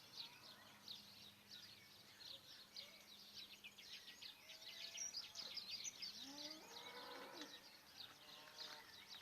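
Faint birdsong outdoors: many quick, high chirps and twitters, over a faint low steady hum.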